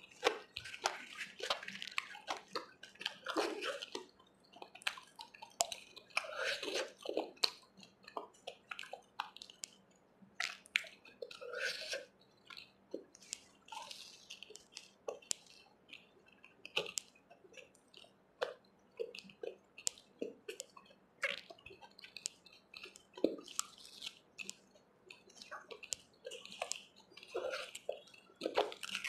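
Close-up eating sounds of chole with puri eaten by hand: chewing and wet mouth smacks, with short irregular clicks scattered throughout.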